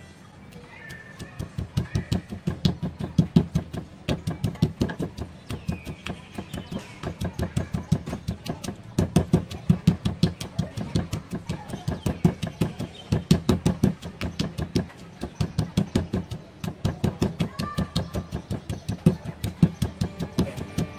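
Granite pestle pounding chilies, garlic and shallots in a granite mortar: rapid dull thuds, several a second, in runs with short pauses, crushing them to a coarse paste.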